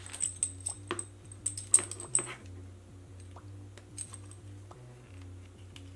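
Large aluminium tree spikes and the metal buckle on a leather spike choker clicking and clinking against each other as the belt is picked up and bent round, with a quick run of sharp, ringing clicks over the first two seconds and a few softer clicks after. Faint low background music underneath.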